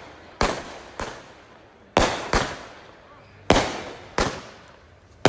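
Fireworks going off: six sharp, loud bangs at uneven intervals, each trailing off in a short echo.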